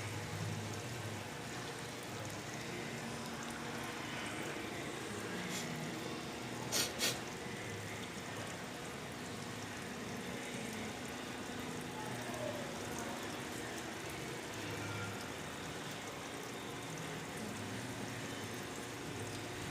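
Water trickling steadily into an automatic washing machine as it fills. Two quick clicks come about seven seconds in.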